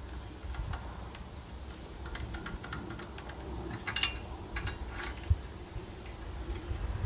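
Scattered light metal clicks and taps as a pushrod is worked out from the rocker arm of an 18 hp Kohler engine with its valve cover off, over a low rumble.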